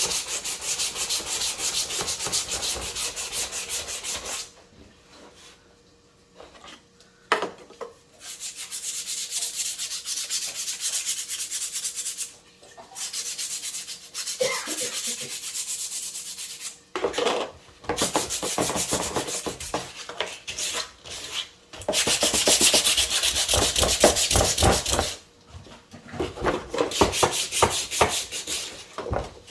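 Fast back-and-forth hand strokes rubbing down a BMW E36 door card's surface to take off old dirt and residue. The rubbing comes in spells, stopping for a few seconds about four seconds in and briefly near the end.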